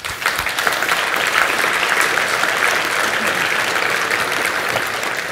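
Audience applauding, many hands clapping; it starts suddenly and tapers off near the end.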